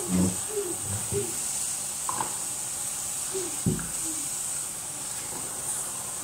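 Kitchen tap running with a steady hiss while a plastic cutting board is rinsed and handled in the sink, with a sharp knock of the board against the sink a little past halfway.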